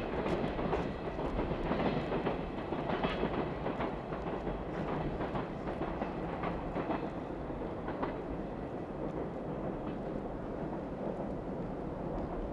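Freight train container wagons rolling on the rails, their wheels clicking sharply over the rail joints for the first few seconds. The sound then settles into a steadier, slightly fainter rumble as the end of the train draws away.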